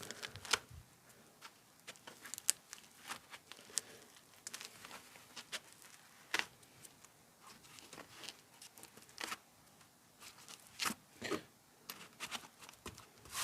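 Faint, scattered short scratches, clicks and tearing sounds of a knife cutting and pulling out a small section of tool-organiser foam.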